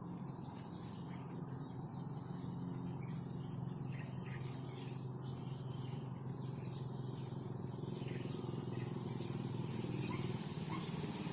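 Crickets chirping in a high, steady, pulsing trill over a low steady hum that grows slowly louder toward the end.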